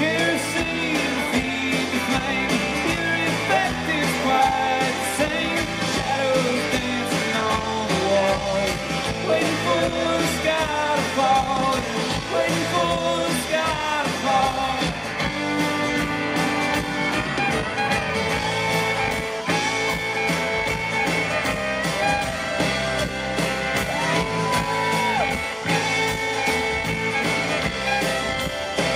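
A live country-rock band playing a song at full volume, with a man singing lead over acoustic and electric guitar, pedal steel guitar and fiddle.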